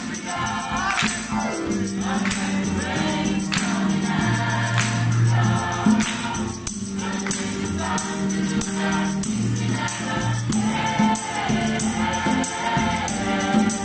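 Mixed choir of young female and male voices singing in harmony, the men's low notes under the women's upper parts, with a djembe hand drum struck in time.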